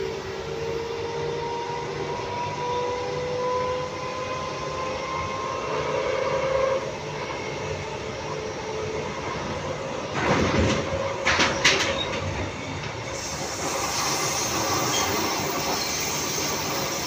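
Transperth A-series electric train heard from inside the carriage while running: a steady ride rumble with a faint whine that rises slowly over the first few seconds. A cluster of sharp wheel clacks comes about ten to twelve seconds in, and the hiss grows louder near the end as the train gathers speed.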